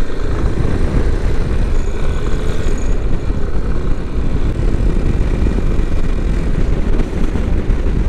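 Wind rushing and buffeting on the microphone of a Yamaha Serow 250 motorcycle riding at speed, over the rumble of the bike's single-cylinder engine and road noise; steady and loud throughout.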